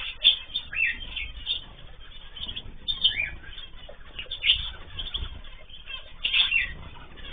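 Mixed cage birds (cockatiels, zebra finches and canaries) giving many short chirps and calls, with wing flapping and a few low thumps now and then.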